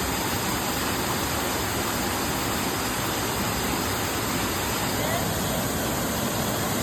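Steady, even rushing of falling water, full of high hiss, as from a waterfall close by.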